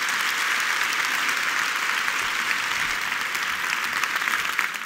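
A large audience applauding: dense, steady clapping that holds even throughout and drops away right at the end.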